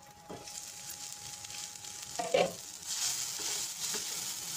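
Mixed vegetables sizzling in oil in a kadhai, uncovered after steaming under a lid, then stirred with a spatula. The sizzle grows louder about three seconds in as the stirring starts, with one brief knock about two seconds in.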